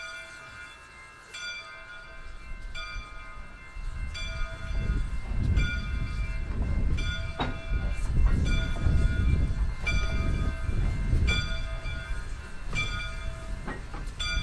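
Steam locomotive bell ringing in slow, even strokes about every second and a half, as the 2-8-2 Mikado steam locomotive's heavy running rumble swells in from about four seconds in while it passes.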